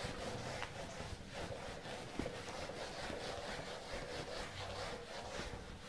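Whiteboard duster rubbing across a whiteboard in repeated back-and-forth strokes as the board is wiped clean; faint.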